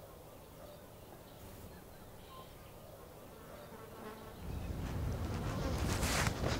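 Flies buzzing faintly. About four seconds in, a louder low rumble builds, with a short hissing rush near the end.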